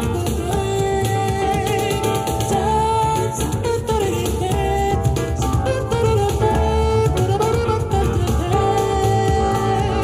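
Jazz music with cajon played back through a pair of Audioengine HD3 powered bookshelf speakers, switching partway to Audioengine HD4 speakers, and picked up by microphones in the room. A gliding melody carries over a steady rhythm.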